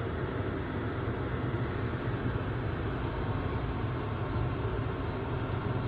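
Steady low rumble of a car driving, heard from inside the cabin: engine and road noise with no distinct events.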